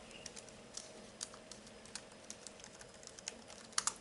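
Faint, scattered small clicks and ticks of electronic kit parts and their packaging being handled on a workbench, with a quick cluster of louder clicks near the end.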